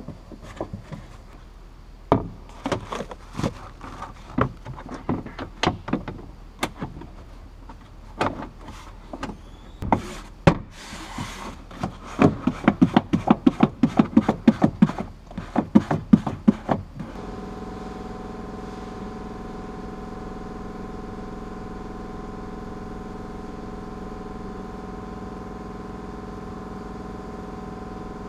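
Plastic boot side trim panel of a Nissan Qashqai being pressed and knocked back into place by hand: scattered clicks and knocks, then a fast run of knocks, about four a second. About 17 seconds in this cuts to a steady hum with several steady tones.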